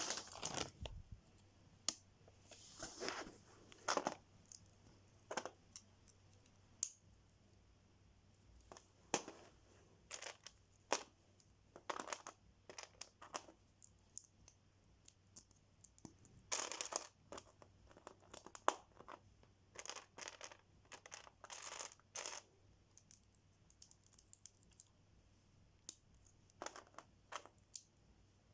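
Lego set packaging being handled and opened: faint crinkling and tearing in short, irregular bursts, with scattered small clicks and taps.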